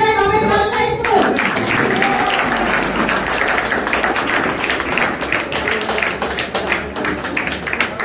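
Many people applauding, a dense run of hand claps in a hall. A held note of a voice or music ends about a second in, just as the clapping takes over.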